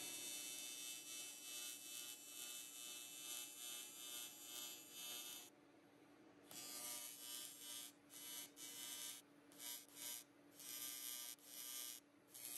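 AC TIG welding arc on aluminum, buzzing faintly. It runs steadily for about five seconds, breaks off, then returns as a string of short bursts as the arc is switched on and off.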